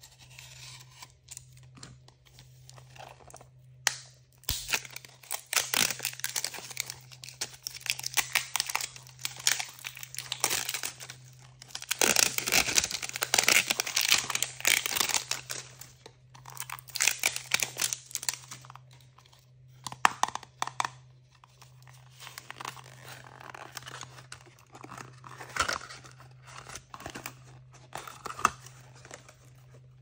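Wrapping or packaging being torn open and crinkled by hand, with close, crackly rips. They start a few seconds in, are densest in the middle, and then thin out to scattered crinkles.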